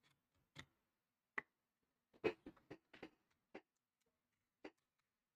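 Sharp, scattered plastic clicks and taps as plastic pry cards are worked along the edge of a laptop display panel, prying it apart from its back cover. Single clicks come about a second apart, with a quick run of several clicks in the middle, the loudest of them about two seconds in.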